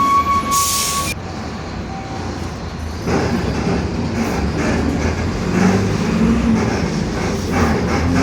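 Inside a Mercedes-Benz OF-1721 city bus: a steady high whine and a short burst of air hiss stop about a second in. From about three seconds in, the engine rumble and the body rattles grow louder.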